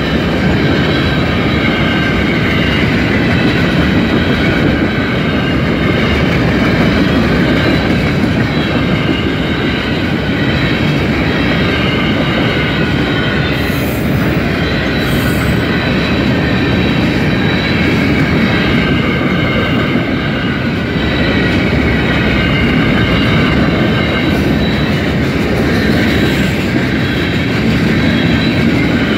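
Canadian National mixed freight train's cars rolling past at close range: a steady heavy rumble of steel wheels on rail, with a continuous high-pitched squeal from the wheels.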